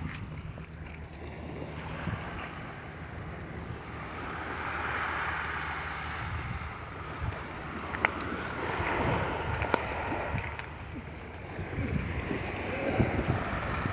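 Surf washing on the beach in slow swells, with wind rumbling on the microphone. A few light clicks come about eight and ten seconds in.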